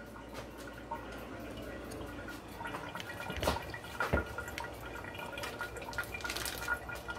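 Quiet kitchen sounds: faint water dripping, with two light knocks of handling about three and a half and four seconds in.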